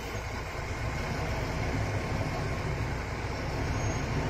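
Steady low rumbling background noise, with no distinct events.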